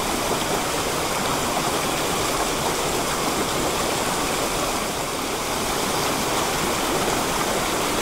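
A mountain stream cascading over rocks below a small waterfall: a steady, even rush of water.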